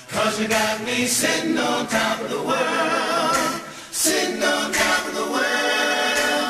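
Male R&B vocal trio singing sustained close harmonies with little or no instrumental backing.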